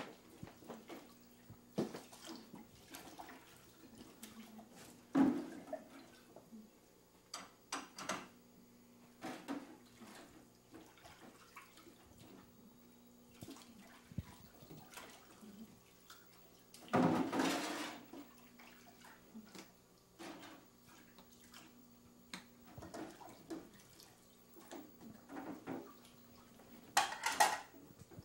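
Dishes and pans being washed at a kitchen sink and set into a wire dish drainer: scattered clinks and knocks, with a short rush of running water past the middle. A faint steady electrical hum runs underneath.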